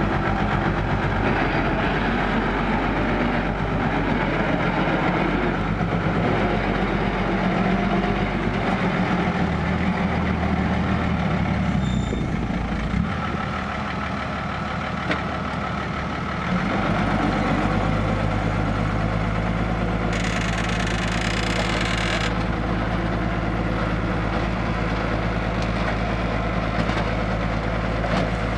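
Isuzu six-wheel dump truck's diesel engine running as the truck drives and manoeuvres. From about halfway it is held at steady revs while the hydraulic hoist raises the bed to tip the soil. A brief hiss comes about two-thirds of the way in.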